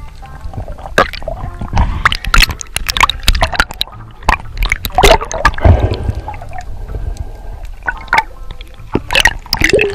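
Water gurgling and sloshing around an underwater camera as a diver swims, with a low rumble and many irregular sharp clicks and crackles.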